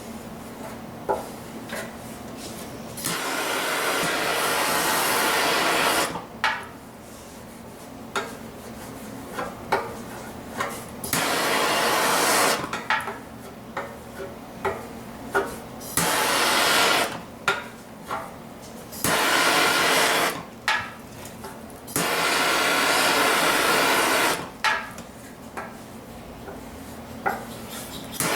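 A MAP gas torch hissing in bursts of two to three seconds, switched on and off over and over while lead body filler is heated. Between the bursts come short taps and scrapes of the lead being worked.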